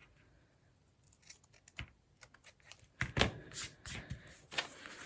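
Scissors cutting, a series of short snips that start quietly about a second in and get louder and closer together from about three seconds in.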